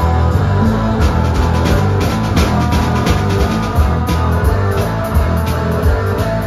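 Live rock band playing: electric guitar, electric bass guitar and a drum kit keeping a steady beat.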